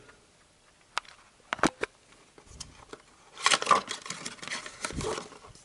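Cardboard oil-filter box being handled and opened: a few sharp clicks, then about two seconds of rustling and scraping as the metal filter is slid out, with a low knock near the end.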